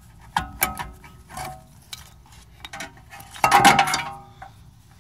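Porsche Macan rear brake caliper and pads being worked off the rotor: a string of light metallic clicks and clinks, then a louder metal clatter with a brief ring about three and a half seconds in.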